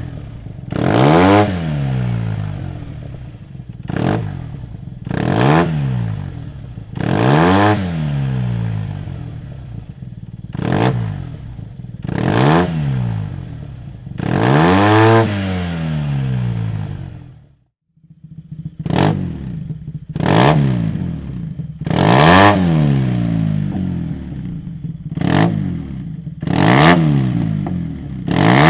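Yamaha TMax 500 twin-cylinder engine revved through a Dominator aftermarket exhaust in repeated throttle blips. Each blip rises quickly in pitch and falls back to idle, about one every one and a half to two seconds. The sound drops out briefly a little past halfway, then the blips resume.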